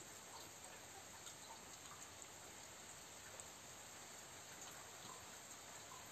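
Near silence: faint steady hiss with scattered soft ticks.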